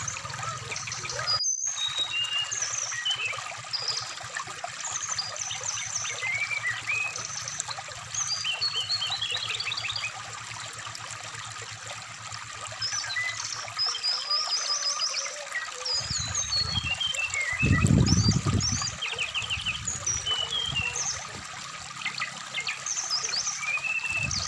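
Brown-chested jungle flycatcher (SRDC) singing a varied run of short chirps, trills and whistles over the steady trickle of a shallow stream. A louder low rush comes about eighteen seconds in.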